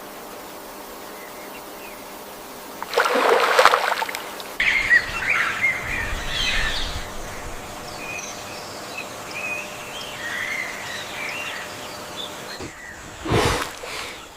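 Small birds chirping over a steady outdoor background, with a loud rushing noise about three seconds in and another brief one near the end.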